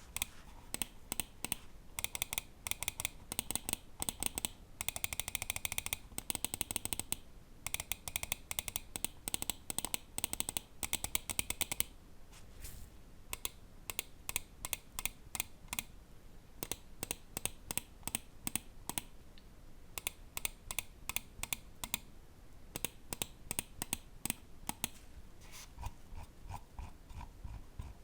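Ajazz AJ159 Apex gaming mouse's Huano microswitch buttons clicking: fast runs of clicks in the first half, then slower, spaced single clicks. Near the end a lower-sounding clicking takes over.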